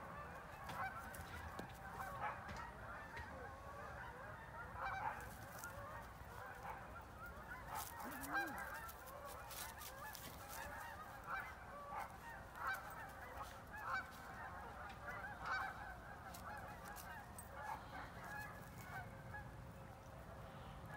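A flock of geese honking, with many short calls overlapping in a steady, continuous chorus.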